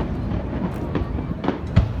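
Fireworks going off in quick succession: several sharp bangs, about five in two seconds, over a continuous low rumble of further bursts.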